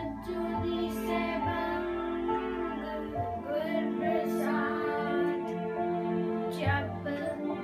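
A child singing a Sikh devotional hymn (shabad) over a steady sustained instrumental accompaniment.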